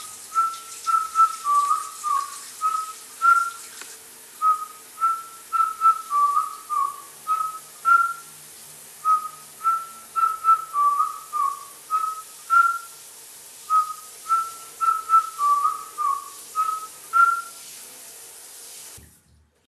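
A tune whistled in short, clear notes, one phrase of about four seconds repeated four times over a steady hiss, all stopping abruptly near the end.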